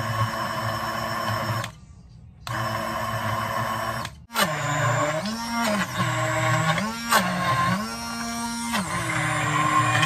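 Braun stick hand blender motor switched on in two short runs, then run down in a jar of food, its pitch sagging and recovering again and again as the blade takes the load.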